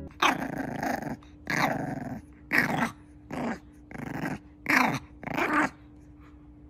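Bulldog puppy giving about seven short growls in a row, each under a second, then falling quiet.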